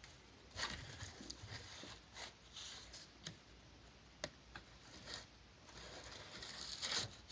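Faint handling noise: scattered light rustles and a few soft clicks, with a sharper click about four seconds in.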